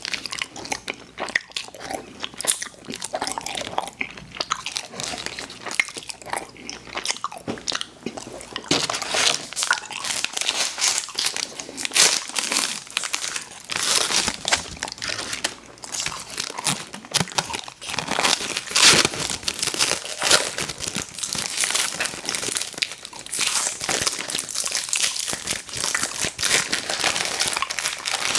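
Close-miked eating sounds: biting and chewing of candy, with quick, irregular clicks and crackles throughout.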